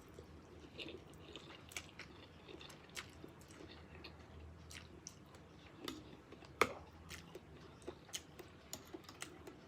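Close-up eating sounds of a person chewing and slurping spicy instant noodles: irregular small wet clicks and smacks, one louder smack about two-thirds of the way through.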